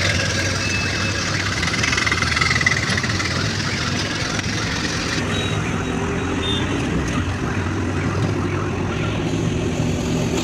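Auto-rickshaw engine running steadily as it drives through traffic, heard from inside the open cab along with road noise.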